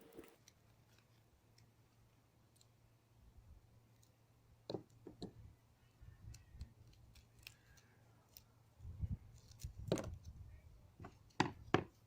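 Scattered light clicks and knocks from handling tools and materials at a workbench, over a faint steady low hum.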